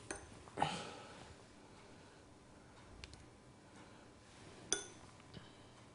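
Quiet room with faint handling noises: a soft rustle just after the start, then a single small clink that rings briefly, about three-quarters of the way through.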